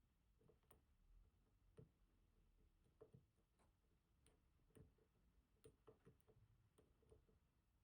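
Very faint, irregular small clicks and ticks of lock picks working inside an ASSA Twin Combi high-security pin-tumbler lock, probing and setting its pins.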